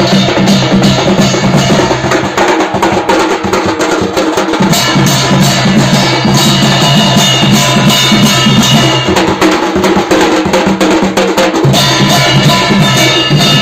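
Ghanta party folk percussion ensemble playing: many hand-held brass plate gongs (ghanta) struck with wooden sticks in a fast, dense rhythm over a barrel drum (dhol), with a metallic ringing clang throughout.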